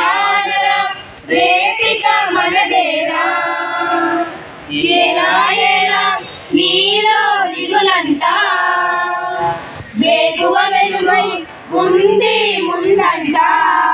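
A small group of girls singing a Telugu patriotic song together, unaccompanied, in phrases with short breaks for breath between them.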